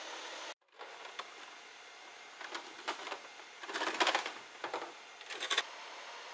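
Crane chain and hook clinking and rattling in several short metallic bursts, loudest about four seconds in, as rigging is attached to a wrecked van.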